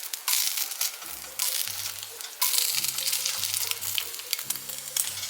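Bacon and eggs frying in a pan, a steady sizzling hiss with scattered sharp pops of spitting grease.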